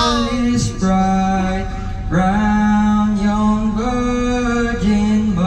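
A man singing into a microphone in slow, long held notes, over a steady low hum.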